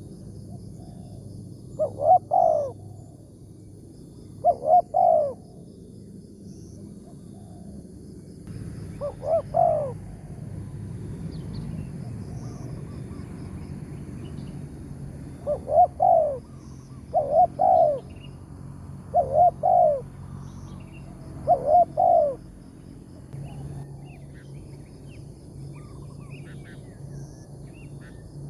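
Spotted dove cooing: seven short phrases of two or three coos each, a few seconds apart. Faint chirps of small birds are heard between them.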